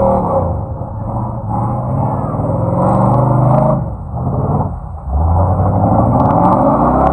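An off-road vehicle's engine revving hard under load. The pitch rises and falls with the throttle, easing off twice around four and five seconds in before coming back on strongly.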